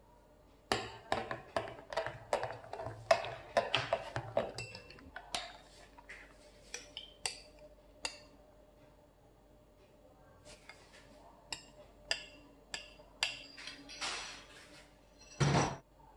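Kitchen utensils and dishware clinking and tapping in a quick run of sharp clinks. After a short pause a second run of clinks follows, then a brief louder scrape near the end.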